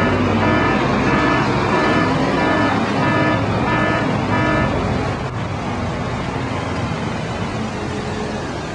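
Street traffic: a road vehicle running close by, with a pitched tone pulsing about twice a second for the first few seconds before the noise evens out.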